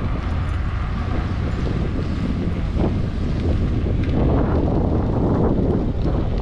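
Wind buffeting the microphone of a GoPro action camera on a moving bicycle: a steady low rumble that swells louder for a couple of seconds about four seconds in.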